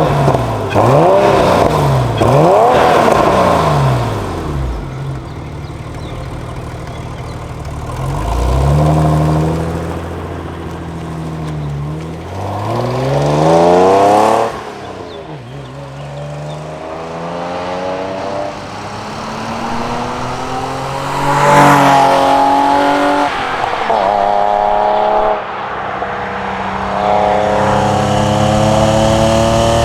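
Porsche 993 Carrera's air-cooled, naturally aspirated flat-six pulling hard through the gears of its six-speed manual. The revs climb and then fall sharply at each shift, several times, with quick rises and falls of engine speed in between.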